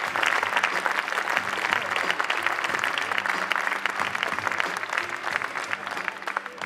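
Audience clapping, a dense, steady applause that thins out near the end.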